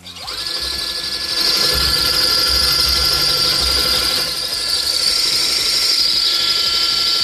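Cordless drill spinning up and then running steadily with its bit pressed against a hardened steel bolt head, giving a loud, steady high-pitched squeal of steel rubbing on steel: the bit is barely cutting the hardened bolt.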